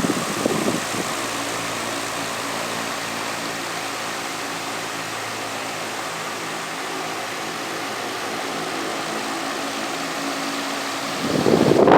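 Vitalex Turbolex 60 cm, 200 W wall fan running: a steady motor hum with several steady tones under an even rush of air. About eleven seconds in, its airflow starts buffeting the microphone and the sound gets louder.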